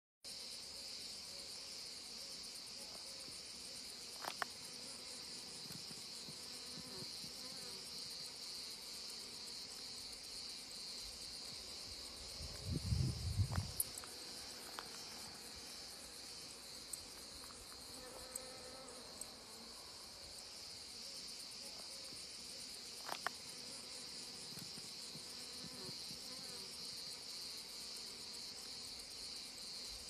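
Insects chirring in a steady, high-pitched, unbroken drone, with a few faint clicks and a brief low rumble about halfway through.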